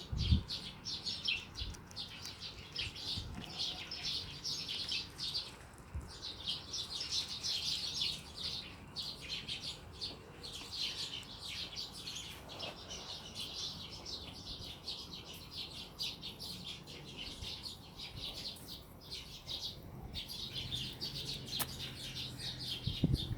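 Many small birds chirping and twittering continuously in a dense chorus, with a few soft thumps.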